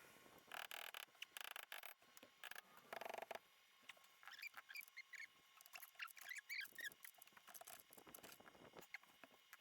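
Faint clicks, two short scrapes and a series of small high squeaks from hand tools and metal suspension parts being worked in a tight space.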